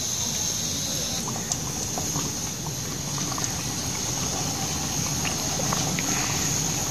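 Hot oil in a steel karahi sizzling steadily, with scattered small crackles, while battered potato slices deep-fry.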